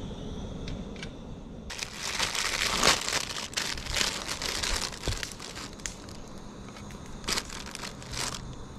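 Crinkling and rustling, dense for about three seconds starting near two seconds in, then a few scattered clicks and short rustles.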